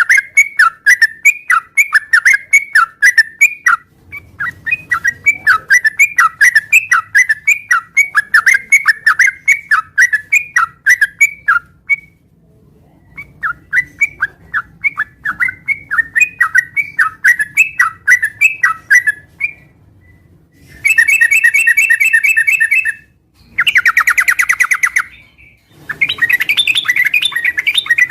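Yellow-vented bulbul (trucukan) singing hard: a long run of short, repeated bubbling notes, about three a second, then rapid chattering bursts in the last third.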